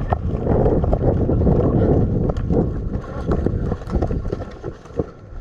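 Rumbling wind and handling noise on a helmet-mounted camera microphone as the player moves, with loud breathing and scattered footfall-like knocks. The noise eases off about four seconds in.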